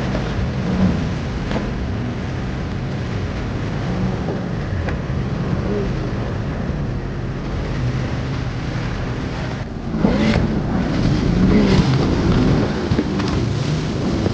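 Sea-Doo RXT-X 300 personal watercraft running through rough, choppy water, with wind and rushing water on the microphone. It gets louder from about ten seconds in.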